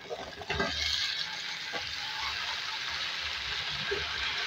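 Cubed potatoes sizzling steadily in hot oil with frying onions in a kadhai, stirred with a wooden spatula. A knock about half a second in, after which the sizzle settles in.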